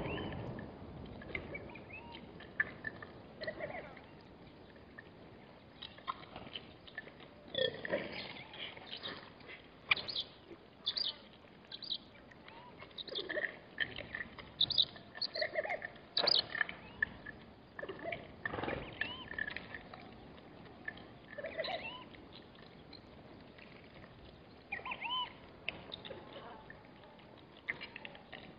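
Warthogs and their piglets calling in short, scattered squeaks and grunts, many of them bending up or down in pitch, coming thickly through the middle of the stretch.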